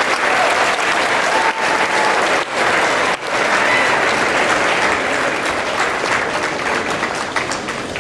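Large crowd applauding steadily in a gymnasium, with a few faint voices calling out; the clapping eases slightly near the end.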